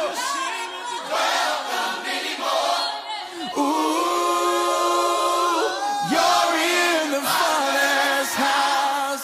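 Several voices singing together as a choir, in flowing phrases with one long held chord in the middle and no bass beneath them.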